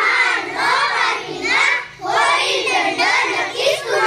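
A group of children singing a line of a Marathi poem together in unison, with a short break between phrases about two seconds in.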